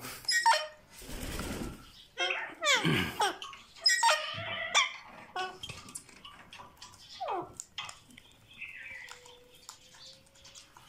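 Alexandrine parakeets making a string of short chattering calls, several of them sliding steeply down in pitch.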